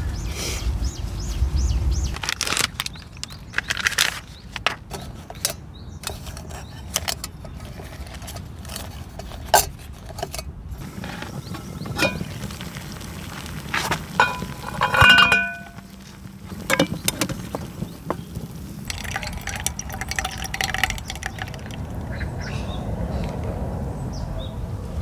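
Camp cookware and utensils being handled: scattered clicks, taps and knocks over a steady low background, with a short, louder pitched sound about fifteen seconds in.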